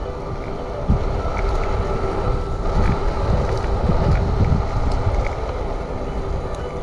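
Wind buffeting the microphone while riding an UNAGI Model One E350 electric scooter on asphalt, with steady rolling road noise underneath and a faint steady whine.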